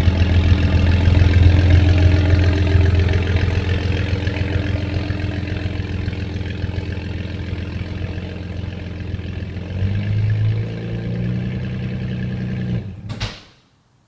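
A 2009 Dodge Charger's 3.5 L V6 idling through a Pypes Violator cat-back exhaust, a steady deep note. The note steps up briefly about ten seconds in. The sound stops abruptly about 13 seconds in, with a sharp click.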